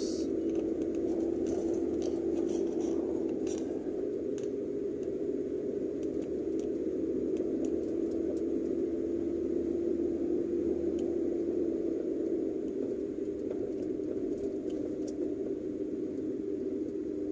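Car engine and tyre noise heard from inside the cabin: a steady low drone at an even speed, with faint scattered clicks of small rattles, most of them in the first few seconds.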